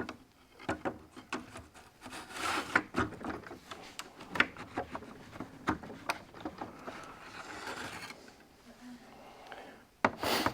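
Metal parts of a truck seat base mechanism being handled and worked by hand while it is greased: irregular light clicks and knocks with stretches of rubbing and scraping, and a louder knock near the end.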